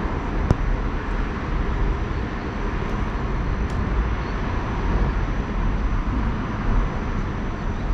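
Steady rush of water while gravel is washed for gold, with a faint steady high whine and a couple of small clicks.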